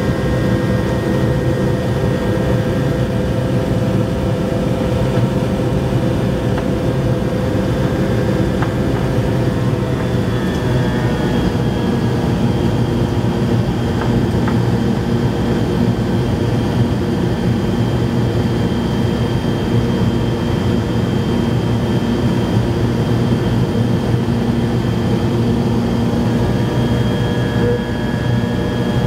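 Cabin noise of a McDonnell Douglas DC-9-51 climbing after takeoff: the steady drone and whine of its rear-mounted Pratt & Whitney JT8D turbofans, heard inside the cabin. About ten seconds in, the engine tones slide a little lower and then hold steady.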